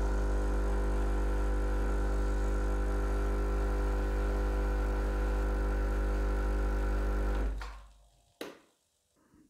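Sage (Breville) Bambino Plus espresso machine's vibration pump humming steadily as it pushes water through the coffee to pull a shot. It stops about seven and a half seconds in, when the shot is ended at the button, and a single sharp click follows about a second later.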